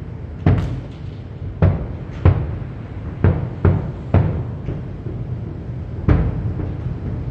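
Aerial fireworks shells bursting in an irregular run of about ten booms, each a sharp crack followed by a low rumbling echo, with a shorter pause just past the middle.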